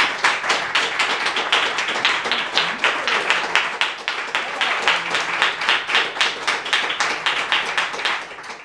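A small audience applauding, with individual hand claps standing out in a dense, steady patter of clapping.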